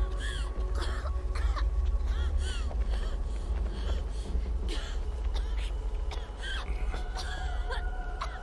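Birds calling in the episode's soundtrack: short cries that rise and fall in pitch, repeating about once a second, over a low steady rumble and a few faint held tones.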